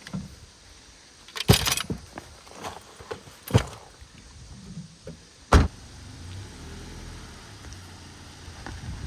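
Three sharp thumps, like car doors shutting, then a vehicle engine running low and steady from about six seconds in.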